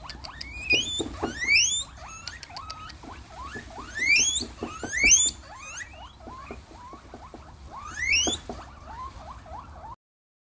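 An animal's high squealing calls, each rising steeply in pitch, come in three loud clusters with shorter chirps between them. The sound cuts off abruptly near the end.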